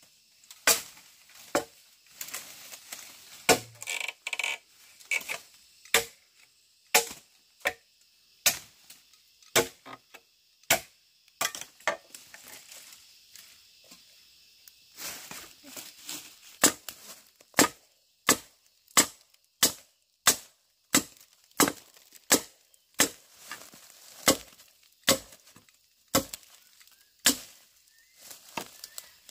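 Repeated chopping strikes into wood, a blade hitting about once a second, with a pause of a few seconds around the middle.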